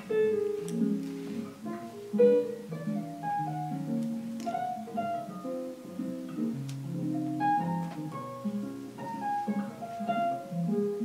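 Background music: a melody of separate notes changing every fraction of a second.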